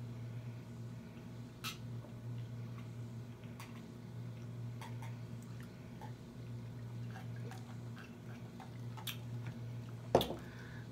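Close-miked eating sounds: quiet chewing and mouth smacks with scattered small clicks, over a steady low hum. About ten seconds in comes one short, louder sudden sound.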